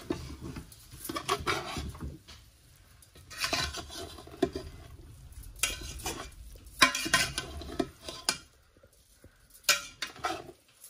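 Metal spoon scraping and clinking against the side of a metal cooking pot as cooked biryani rice is gently turned over and mixed, in irregular strokes.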